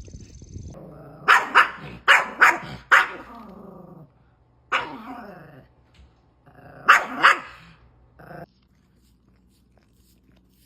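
A dog barking: a quick run of five barks, then one more, then a close pair, each bark dropping in pitch, before it stops.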